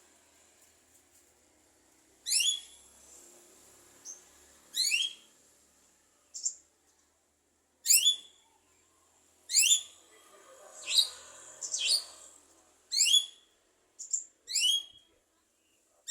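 Javan myna (jalak kebo) calling in a series of short, sharp rising whistles, about one every second or two, with a couple of harsher calls mixed in.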